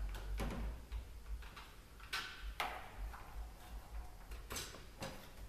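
Scattered metallic clicks and knocks, about six of them at uneven times, the loudest about two and a half seconds in, as the bottom bag holder is worked loose from a pull golf cart's metal frame.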